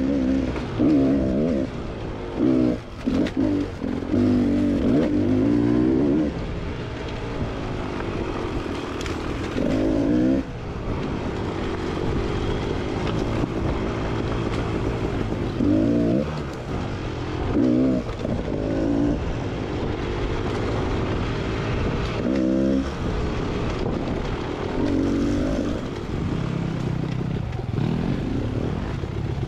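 Beta XTrainer 300 two-stroke single-cylinder dirt bike engine, revved in repeated sharp throttle bursts that rise and fall, with steadier lower running in between.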